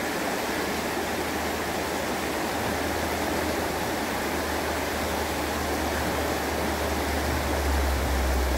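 Shallow river rushing over rocks and small rapids, a steady even rush of water. A low rumble underneath grows stronger near the end.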